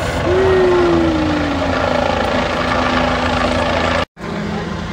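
Steady drone of a police helicopter's rotor overhead, mixed with idling car engines, and a single whine that slides down in pitch over its first two seconds and then holds. The sound cuts out completely for a moment about four seconds in.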